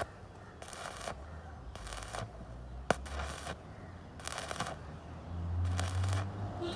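Electric arc welding: about five short bursts of crackling, each under half a second and roughly a second apart, as the arc is struck and broken. A single sharp click comes near the middle.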